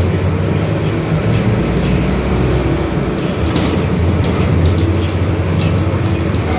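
Mercedes-Benz OF-1721 Bluetec 5 city bus under way, heard from inside: a steady drone of diesel engine, drivetrain and road noise, with the differential droning. Light rattles and clicks from the bodywork come through in the middle.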